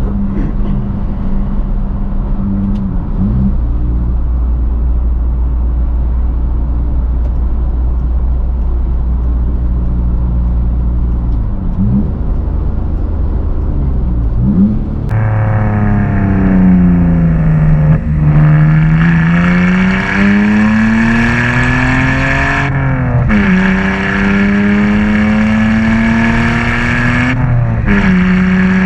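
BMW inline-six engine, first cruising at a steady low note. About halfway in it turns suddenly louder as it is driven hard. The pitch sags, then climbs twice through the gears, dropping at each upshift.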